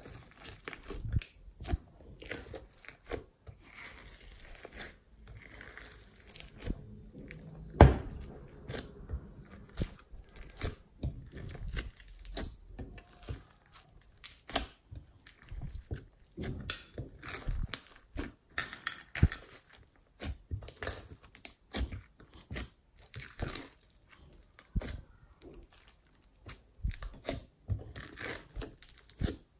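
Glossy slime mixed with foam beads being kneaded, squeezed and stretched by hand in a glass dish. It gives an irregular run of wet clicks, pops and crunches, with one sharp, much louder pop about eight seconds in.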